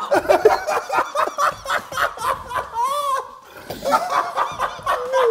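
Two men laughing hard in quick repeated bursts, with a drawn-out high note about three seconds in.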